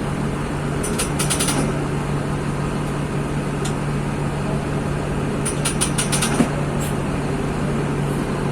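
Mercedes-Benz OF-1724 bus's OM-926 LA six-cylinder diesel engine running with a steady, even hum. Two short bursts of rattling clicks come about a second in and again around six seconds in, with a single sharp knock just after the second.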